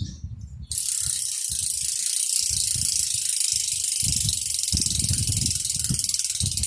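Joytech freehub ratcheting as the wheel spins freely: a fast, even buzz of pawl clicks that starts about a second in. It is not a 'rich' hub sound, but it sounds sound.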